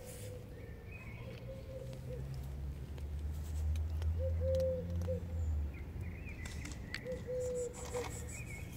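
A dove cooing: groups of short, low, slightly arched notes repeated several times, over a low rumble that swells and fades around the middle.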